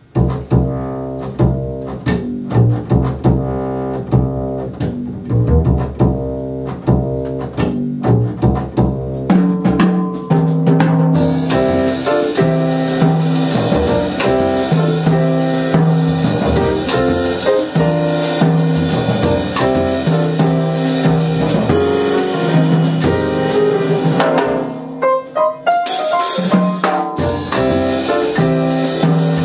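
Jazz trio of acoustic grand piano, upright double bass and drum kit playing a tune. The bass and drums open it, and the full trio, with steady cymbals, is going from about eleven seconds in. There is a short break and a fill around twenty-five seconds in.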